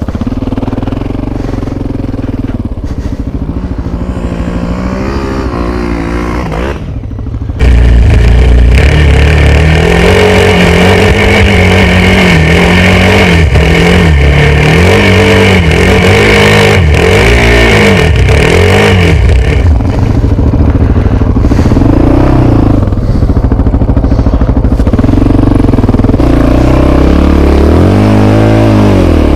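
Quad bike (ATV) engine running under way off-road, its pitch repeatedly rising and falling as the throttle is worked, with rattling from the machine. About a quarter of the way in the sound jumps suddenly louder.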